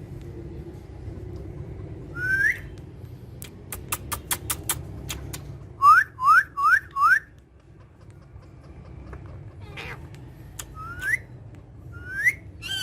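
Parrot whistling short rising notes: one about two seconds in, a quick run of four around six seconds, and two more near the end, with a rapid run of sharp clicks in between.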